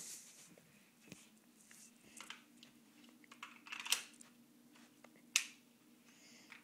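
Scattered light clicks and taps of objects being handled, the two sharpest about four and five and a half seconds in, over a faint steady hum.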